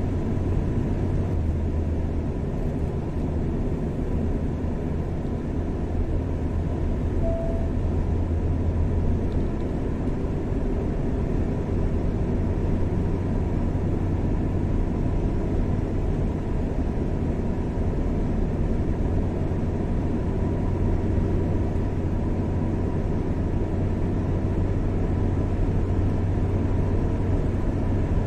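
A car driving at a steady speed on a highway: an even, low rumble of engine and tyre noise.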